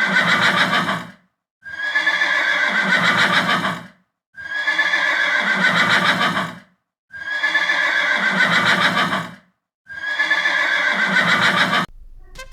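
Horse neighing, the same whinny over and over: the tail of one, then four more, each about two seconds long with brief gaps between. Faint music comes in just at the end.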